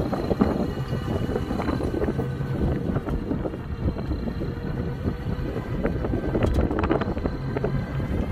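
Wind buffeting the microphone while riding in a small open-sided electric car, over a steady rumble of tyres on the road, with a few sharp rattles about two-thirds of the way through.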